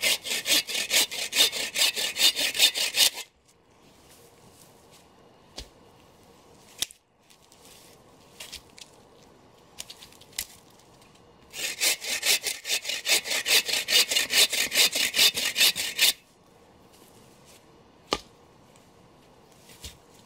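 Hand saw cutting through a dead, dry downed log in two bouts of quick back-and-forth strokes, about four to five a second. The first bout runs for about three seconds at the start, the second for about four and a half seconds starting some eleven seconds in. A few single knocks fall in the pauses.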